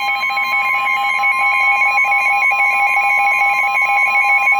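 NOAA Weather Radio 1050 Hz warning alarm tone, one steady loud tone announcing a warning message, received through a weather radio with a steady buzzing interference underneath.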